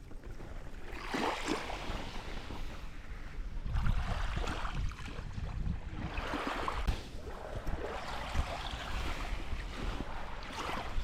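Waves washing onto the beach in repeated surges every few seconds, with wind buffeting the microphone in low rumbles.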